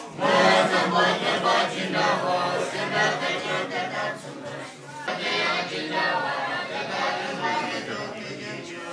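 Young Buddhist monks chanting prayers together, many voices on a steady low pitch, easing off briefly about four seconds in before going on.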